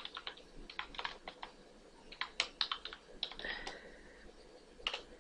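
Typing on a computer keyboard: keystroke clicks come in short, irregular clusters.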